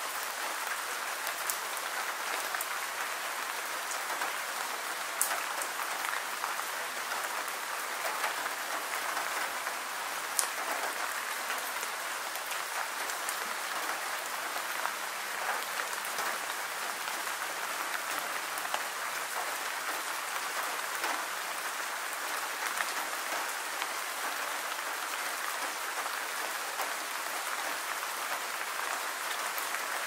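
Steady rain falling, an even hiss with no let-up. Now and then a sharper single drop hit stands out.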